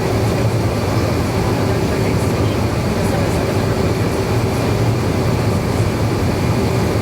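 Steady cabin noise inside an Avro RJ100 airliner on the ground: a constant low hum and rushing air from the aircraft's systems, with a faint steady tone running through it.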